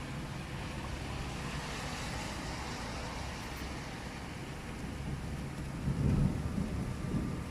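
Rain outdoors: a steady rushing hiss, with low rumbles swelling about six seconds in.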